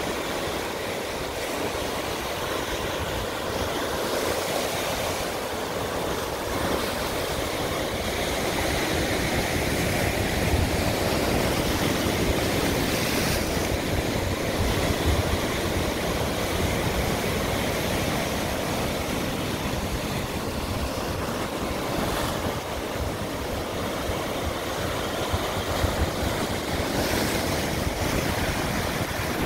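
Ocean surf breaking and washing against a rocky shoreline, a steady rushing wash that swells and eases with the waves, with some wind rumble on the microphone.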